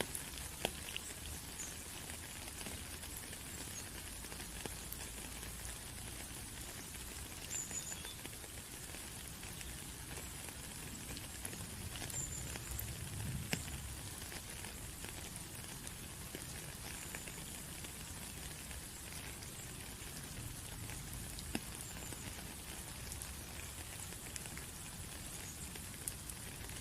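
Rain falling, a steady patter with scattered individual drops ticking through it.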